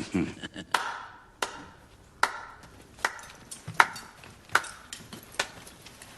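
A slow, even series of sharp strikes, seven in all, about one every three-quarters of a second, each with a short ring.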